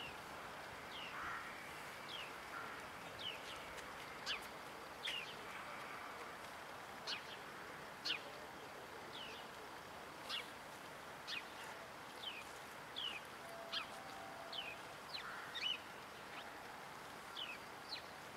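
A bird calling with short, downward-sweeping chirps, roughly one a second with a few pauses, over faint background noise.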